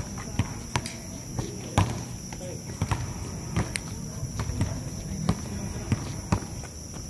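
A basketball bouncing on an outdoor hard court: irregular thuds as players dribble and shoot. A steady high insect drone runs underneath.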